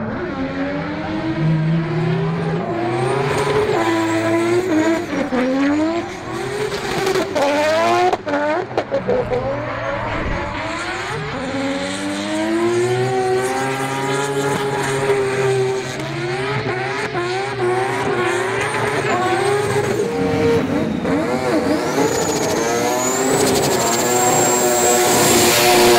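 Mazda 20B triple-rotor engines revving hard, the pitch rising and falling again and again as the cars are held at high revs, with tyre squeal from spinning rear tyres.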